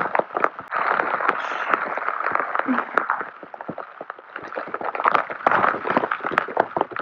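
Rustling and handling of wet waterproof clothing and gear inside a small tent, with rain tapping on the tent fabric. The rustling dies down briefly in the middle and starts again.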